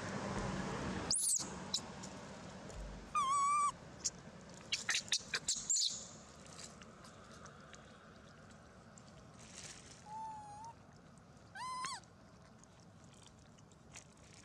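Baby long-tailed macaque giving short, high whining coo calls: one about three seconds in, another near ten seconds, and a last one near twelve seconds that rises in pitch. A quick run of sharp clicks comes about five seconds in.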